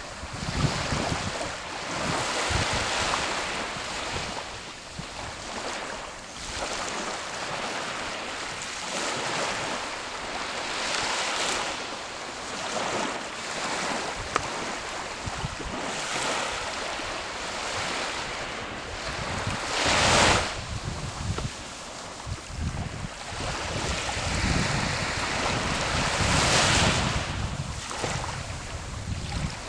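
Waves washing onto the shore, swelling and fading, with a louder surge about two-thirds of the way in and another near the end. Wind buffets the microphone.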